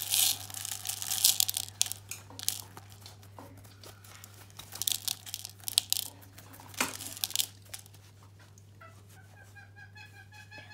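Small plastic bean-bag filling pellets pouring and being shaken out of a cut fabric bag into a plastic bowl: a rattling hiss of pellets landing, with bag-fabric rustling, in irregular bursts, heaviest in the first second and again a few seconds later, dying away after about eight seconds.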